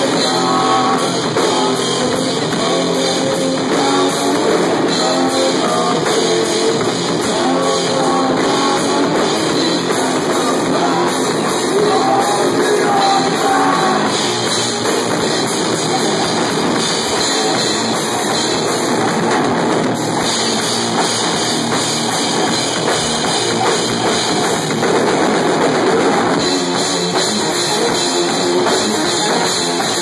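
Loud live heavy rock from a guitar-and-drums band: distorted electric guitar over a drum kit with crashing cymbals, recorded on a phone close to the stage.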